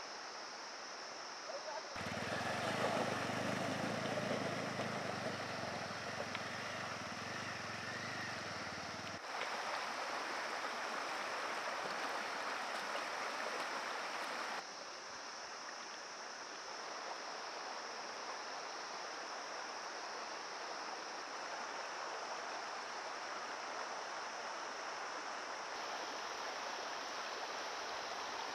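River water rushing, a steady noise that changes abruptly between cut shots, and is louder and deeper from about two to nine seconds in.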